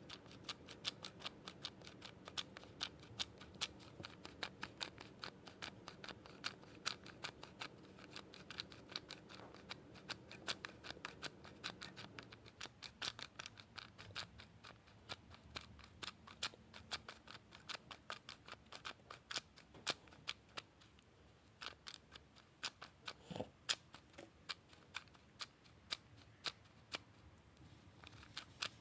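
Sharp clicking in quick succession, several clicks a second, close up. A faint low hum underneath stops about halfway through, and the clicking pauses briefly a little later.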